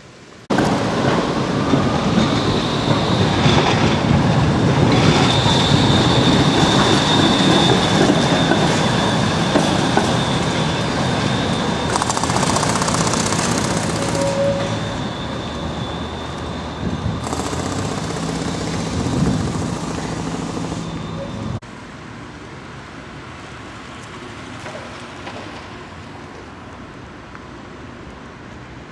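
A tram rolling past close by, rumbling on its rails with a steady high-pitched squeal over it. It starts suddenly about half a second in and cuts off about two-thirds of the way through, leaving quieter street traffic noise.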